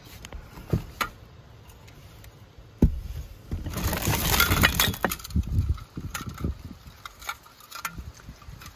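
Hands rummaging through a cardboard box of Halloween decorations and pulling out a string of plastic pumpkin lights. There is a sharp knock about three seconds in, then a burst of crinkly rustling with many small clinks and clicks as the items shift.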